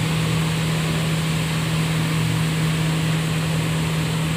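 Silicone-fibre grinding machine running steadily: a constant motor hum over a rushing-air noise as shredded synthetic silicone pillow fill is blown into its collection box.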